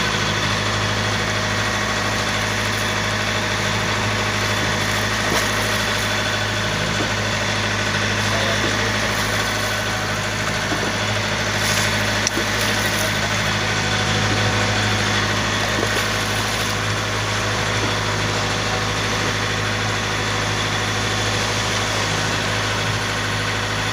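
Boat engine running steadily: a constant low hum under an even hiss.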